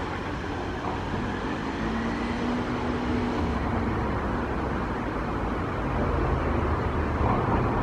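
Steady rumble of urban road traffic, a continuous wash of distant cars, growing slightly louder toward the end.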